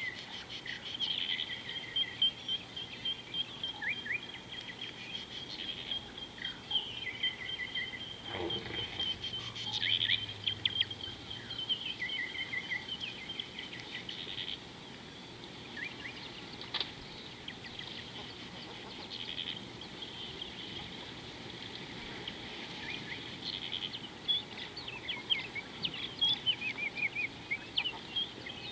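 Wild birds calling: many short chirps and repeated trills, over a steady high-pitched note through the first half, with one call that falls sharply in pitch about eight seconds in.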